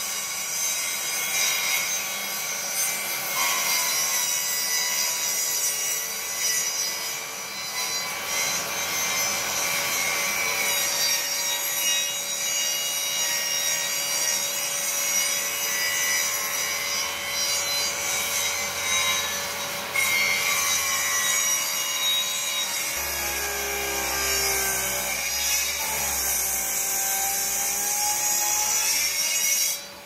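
Handheld circular saw, fitted with a dust-extraction hose, running in one long steady cut through the bottom edge of an old solid-wood door, shaving off wood damaged by damp.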